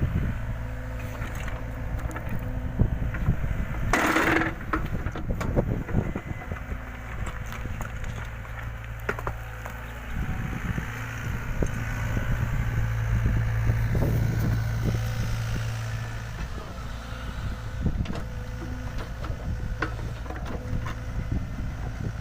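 LiuGong 906F mini excavator's diesel engine running steadily as the machine works backfill soil, louder for a few seconds past the middle. Scattered knocks of soil and stones, and a short burst of hiss about four seconds in.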